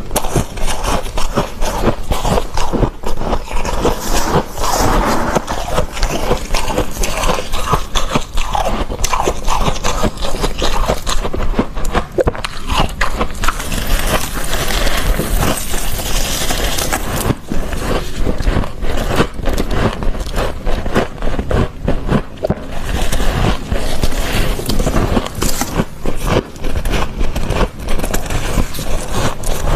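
Close-miked crunching of soft, fluffy freezer frost being scraped and chewed, a steady stream of small crackles and crunches.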